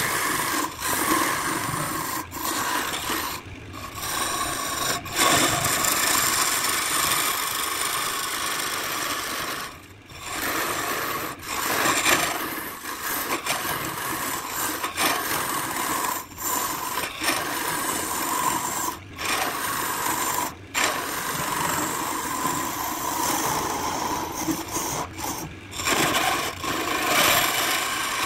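A lathe turning tool cutting the inside of a spinning bowl blank of colored pencils set in epoxy: a steady scraping hiss of shavings peeling away, with brief breaks a few times.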